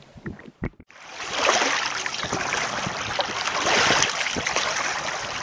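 Water rushing and splashing along a canoe's hull as it is paddled: a steady hiss that swells and eases, starting about a second in after a few faint knocks.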